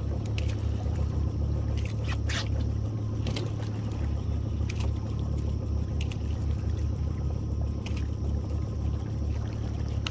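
Small boat's outboard motor running steadily at a low idle as the boat creeps along a crab trotline, with a few faint clicks scattered through.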